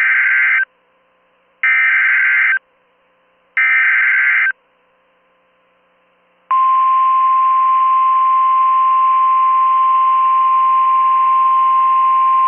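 Emergency Alert System SAME header: three short bursts of screeching data tones, about a second apart, announcing a new National Weather Service alert. About six seconds in, NOAA Weather Radio's single steady 1050 Hz warning alarm tone starts and holds.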